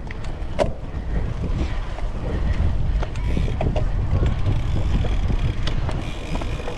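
Wind buffeting the microphone over the rumble of cyclocross bike tyres rolling across dirt and grass, with scattered clicks and rattles from the bike on the rough ground.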